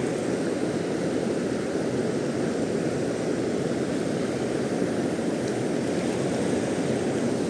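Steady rush of river water, even and unbroken.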